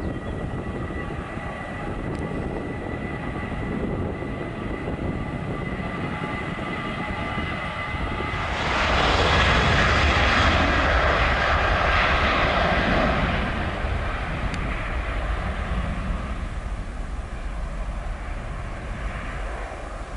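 Boeing 737-800's CFM56-7B turbofan engines on takeoff. First a steady engine whine, then about eight seconds in the roar of takeoff thrust swells loudly as the jet rolls past. It eases off over the last few seconds.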